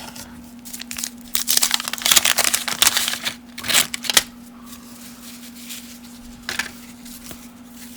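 Wax-paper wrapper of a 1990 Topps baseball card pack crinkling and tearing as it is handled and ripped open, in a run of crackly rustling from about a second in to about four seconds, with a shorter rustle later on.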